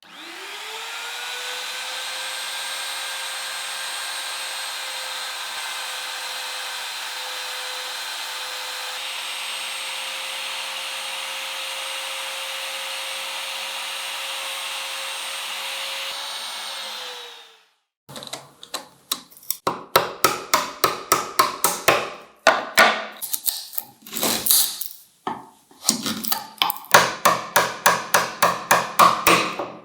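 A power tool spins up quickly, runs steadily for about seventeen seconds and winds down. After a brief pause comes a long run of quick, sharp strikes on wood, about three or four a second, with short breaks.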